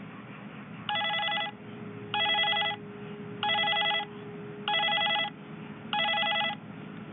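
Hospital telephone's electronic ringer on high volume, warbling in short bursts about every 1.2 seconds: five bursts, with a sixth starting just at the end.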